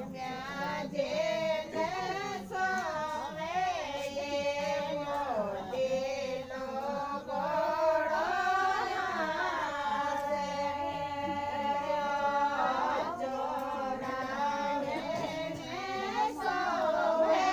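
Singing of a Rajasthani folk song (lokgeet), a devotional song to Bhomiya ji Maharaj, in a high voice with long held, sliding notes.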